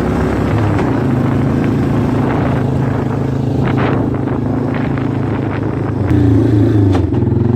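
Four-wheeler (ATV) engine running while riding, a steady low engine note; about six seconds in it revs up and gets louder.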